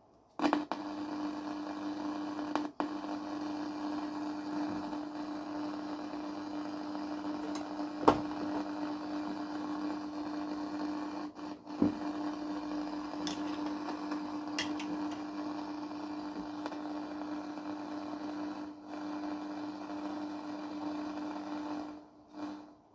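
Homemade radio receiver's loudspeaker giving steady static hiss with a low hum, broken by several sharp clicks and crackles. It comes on abruptly about half a second in and drops away near the end.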